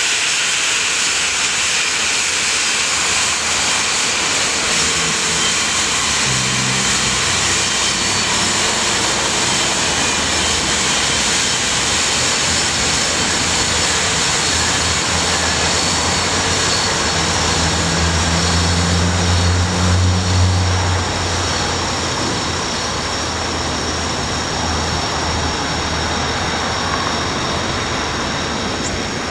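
Lycoming LTS101 turboshaft helicopter engine running steadily: a rush of exhaust with several steady high whining tones, and a low hum that swells for a few seconds about two-thirds of the way through.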